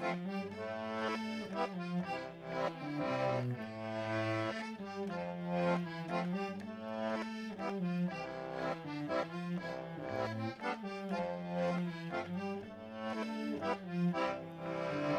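Accordion playing a traditional folk dance tune: a moving melody over a steady bass accompaniment.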